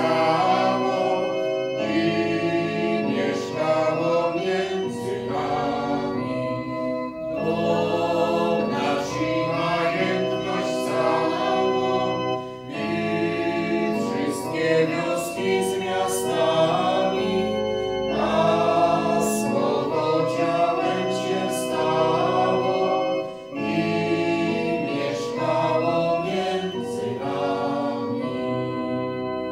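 A choir singing a hymn in phrases with short breaks between them, over sustained keyboard accompaniment.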